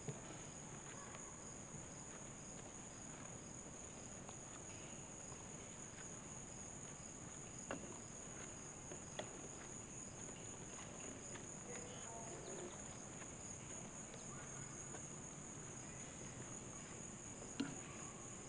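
Steady high-pitched chorus of summer insects, constant throughout, with a few faint knocks now and then.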